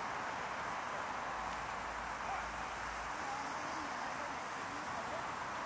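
Steady city street ambience: a constant wash of distant traffic noise, with no single sound standing out.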